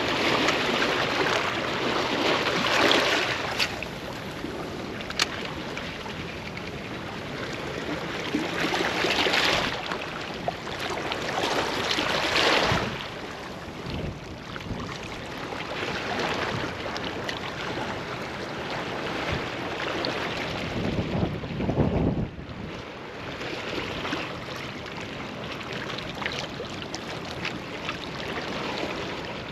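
Wind and lapping water outdoors, the noise swelling and falling in gusts every few seconds, with wind buffeting the microphone and one short click about five seconds in.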